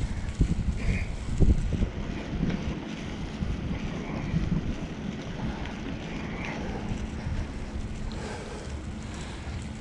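Wind buffeting an action-camera microphone while cycling: a low, uneven rumble with stronger gusts in the first couple of seconds, then steadier.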